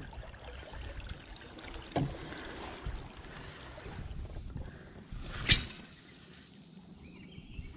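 Quiet ambience on a small river boat: a low, steady wash of water and wind, with a soft knock about two seconds in and a sharper, louder knock about five and a half seconds in.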